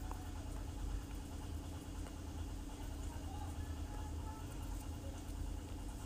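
Steady low background hum, even throughout, with no distinct events.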